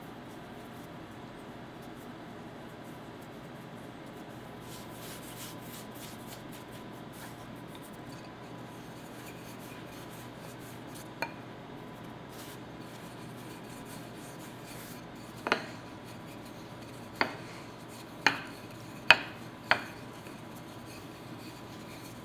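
Floured hands rub and press a sugar-filled dough round flat on a wooden board, a faint rustling over a low steady hum. In the last third come five sharp wooden knocks about a second apart: a wooden rolling pin knocking on the wooden board.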